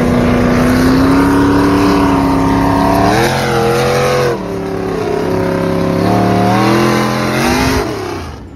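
A pulling tractor's engine running hard at high revs as it speeds down a gravel road. Its note climbs steadily, then steps down and climbs again a few times. Near the end the sound falls away as the tractor passes close by.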